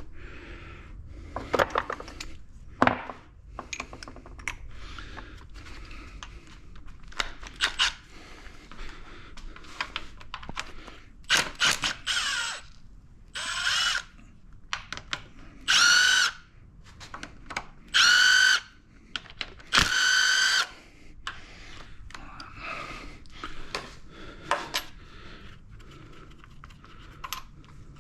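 A handheld power tool spinning out engine bolts in short runs of about a second, five times in the middle of the stretch, with clicks and knocks of tools and metal parts between.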